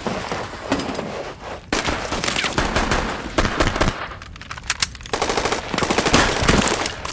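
Bursts of rapid automatic rifle fire in a firefight. One burst comes about two seconds in, and a louder one comes near the end after a short lull.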